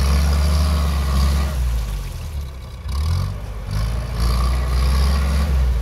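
Willys jeep's engine revving hard in deep mud, twice: it holds high revs, dips about two seconds in, then picks up again at about three seconds and holds. The revs rise and fall as the jeep tries to pull out of the mud.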